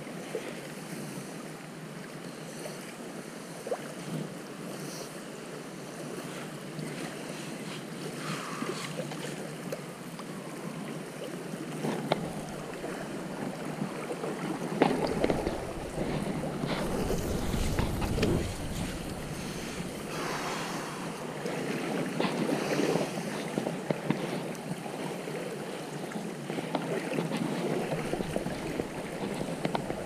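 Steady rush of river water, with wind buffeting the microphone for a few seconds midway through.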